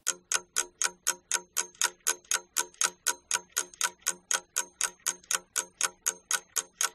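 Ticking-clock sound effect, a steady run of sharp ticks about four a second, counting off the time given for the exercise.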